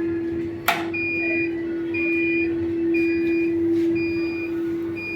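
Electrolux CompassPRO WH6-27 commercial washer beeping at the end of its cycle: short high beeps about once a second, following a sharp click, over a steady hum.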